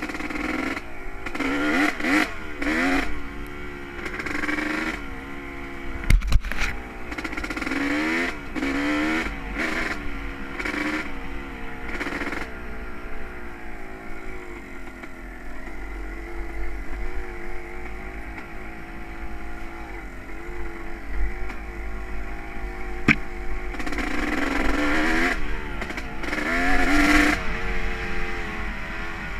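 Honda CR250R two-stroke dirt bike engine being ridden, revving up and down in repeated bursts of throttle with stretches of steadier running in between.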